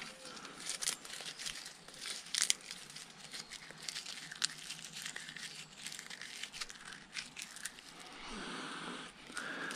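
Crinkly rustling and small cracks of cord and dry sticks being handled as hands wrap and tighten lashings on a frame of wooden poles.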